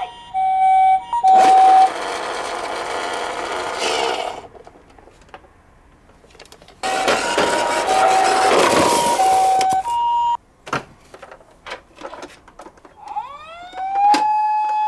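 Toy minicar ambulance's electronic two-tone siren sounding its hi-lo 'pee-po' tones, twice, each time under a burst of rushing noise. Then several clicks, and near the end a second toy siren wails up in pitch and holds.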